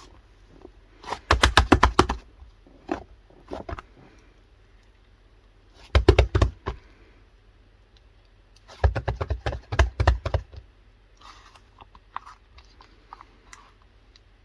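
Slime being squeezed and pressed by hand, giving bursts of rapid small pops and clicks: about a second in, again around six seconds, and a longer burst around nine to ten seconds, with fainter crackles after.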